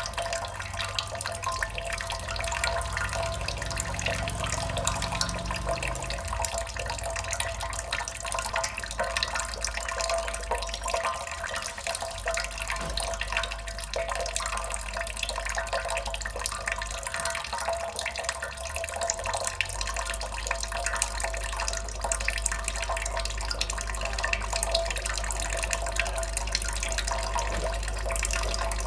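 Water dripping steadily, a dense, continuous patter of many small drops.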